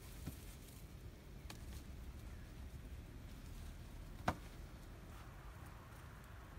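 Quiet handling sounds from rope being pulled tight around a lashed bamboo-pole frame: a couple of faint taps and one sharp click about four seconds in, over a low, steady background rumble.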